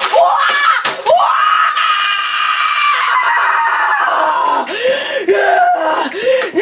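A boy screaming in rage. There are short cries at first, then one long shrill scream of about three seconds that slowly falls in pitch, then a run of short wavering shrieks near the end.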